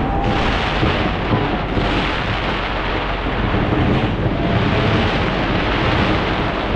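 A dense fireworks barrage fired from a skyscraper: many overlapping bangs and crackles merge into one continuous, loud rumble without pauses.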